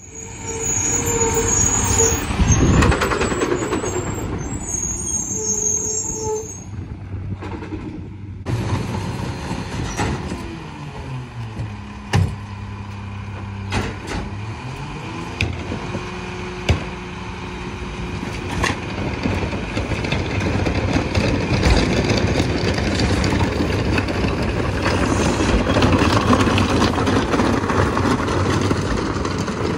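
Mack MRU garbage truck with a McNeilus rear-loader body. Its diesel engine runs and its brakes squeal briefly twice as it pulls up. Then it idles while carts are tipped into the hopper, with a few sharp bangs of cart on steel; the engine revs down and back up near the middle, followed by a steady whine from the packer.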